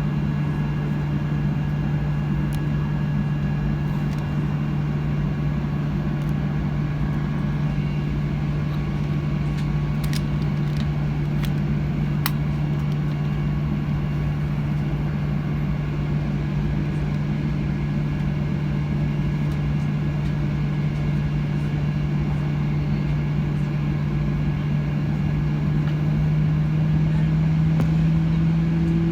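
Boeing 737-800's CFM56 jet engines heard from inside the cabin, running at low power with a steady low drone and a few faint whining tones above it. Near the end the drone rises a little in pitch and grows louder as the engines begin to spool up.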